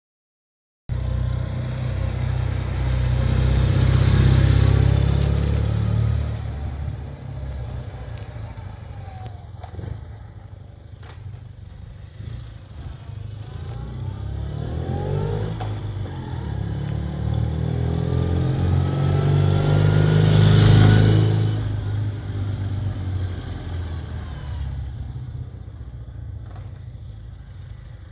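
1953 BMW R68's flat-twin engine as the motorcycle is ridden by. The sound swells about four seconds in and fades, then builds again with rising revs through the gears to a louder pass about twenty seconds in, and fades into the distance.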